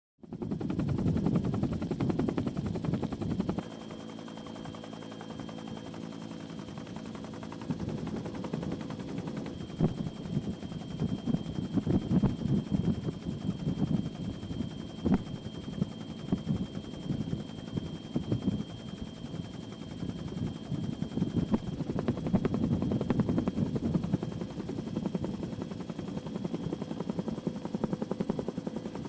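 Helicopter in flight: rapid rotor chop with a steady high turbine whine above it, loudest for the first three seconds and rising and falling in level after that.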